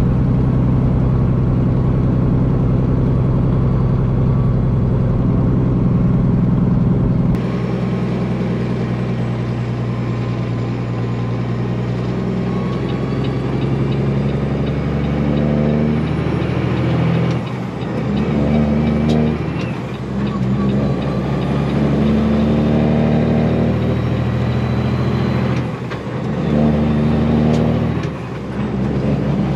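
Straight-piped Cummins diesel of a Peterbilt semi running under way, with a steady engine drone. The tone changes abruptly about seven seconds in. In the second half the engine note breaks off briefly four times and comes back, as the driver shifts gears on the 18-speed.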